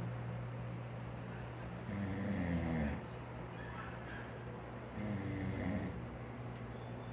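A man snoring in his sleep: two snores about three seconds apart, each lasting about a second, over a steady low hum.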